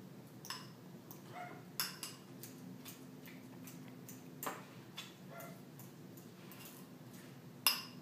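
Fork clinking and scraping against a glass bowl while mashing avocado into guacamole: a handful of irregular light clinks, the loudest near the end.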